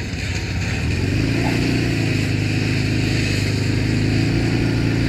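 Fire-fighting pump engine running steadily, picking up speed about a second in and then holding at the higher speed.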